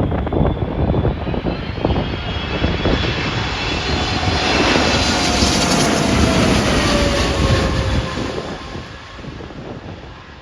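Jet airliner passing low overhead on approach to land, its engine whine falling in pitch as it goes by, then fading away near the end. Gusty wind buffets the microphone throughout.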